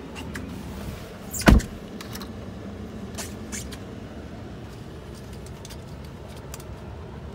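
A pickup truck's door shuts with a single heavy thump about a second and a half in, followed by a few faint clicks over steady low cabin noise.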